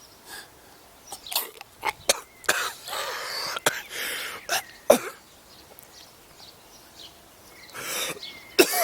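A man coughing in a string of short, sharp coughs with rasping breaths between them, around his first puff of an asthma inhaler; a lingering chesty cough that the doctor put down to asthma. A strained vocal groan comes at the very end.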